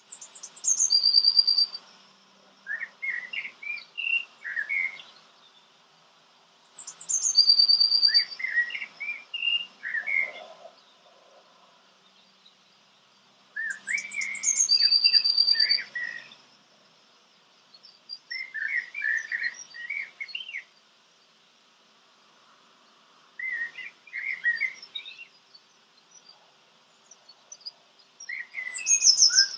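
A songbird singing loud, repeated songs a few seconds apart: each is a quick run of high falling notes and a short held whistle, followed by a cluster of lower warbling notes.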